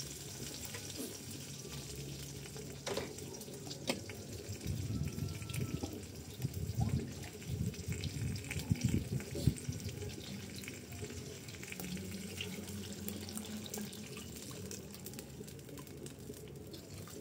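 Water being poured from a bowl into a hot wok of stir-fried cassava over a wood fire, splashing unevenly.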